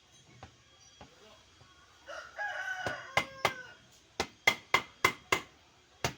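A rooster crows briefly about two seconds in. Then comes a run of sharp, loud knocks, about three a second in short groups, like tapping or striking on a hard surface.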